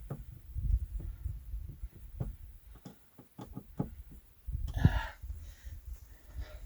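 Handling noise: scattered light clicks and knocks over a low rumble, with a louder scraping rustle about five seconds in.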